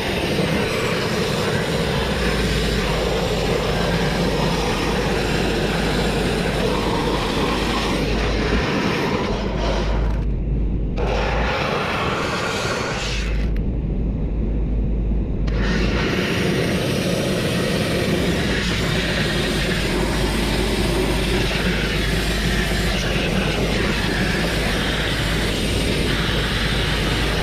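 Grit-blasting nozzle blasting a steel truck chassis: a loud continuous rush of compressed air and abrasive grit. The hiss thins out briefly twice about halfway through as the blast is eased off.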